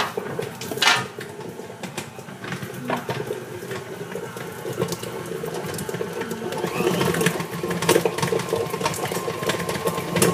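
KitchenAid stand mixer running at medium speed, beating butter in its bowl, a steady motor hum with a few sharp knocks on top, the loudest about a second in.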